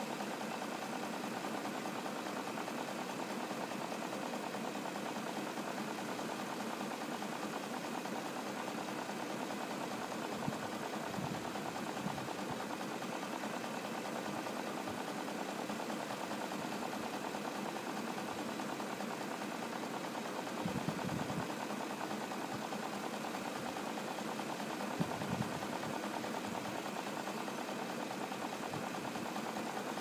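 BMW M62TU 3.5-litre V8 idling steadily, heard from over the open engine bay: an even, healthy idle.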